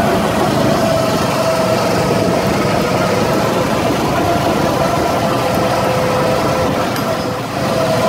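Small go-kart petrol engine running steadily under throttle as the kart drives, with a steady engine hum over a rushing noise; the engine sound dips briefly near the end.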